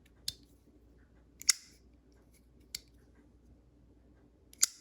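Boker Kalashnikov automatic knife being handled, giving four sharp clicks spread over a few seconds. The loudest clicks come about a second and a half in and near the end.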